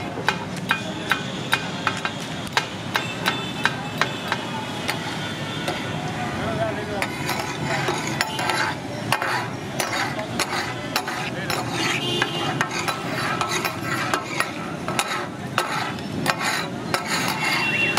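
Katakat being made: two metal spatulas clack and chop against a large flat metal griddle as goat brains and offal sizzle on it. The sharp clacks come about two or three a second at first, then quicker and more jumbled.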